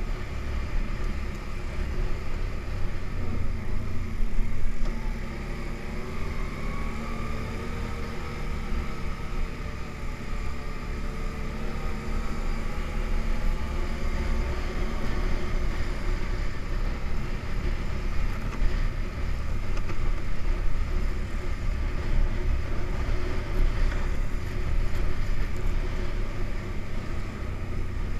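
ATV engine running while riding, its pitch rising and falling with the throttle, over a heavy low rumble.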